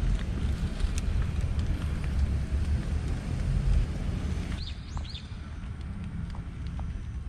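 Low rumbling noise on a GoPro action camera's microphone, which drops off sharply about four and a half seconds in. Just after the drop come two short rising chirps.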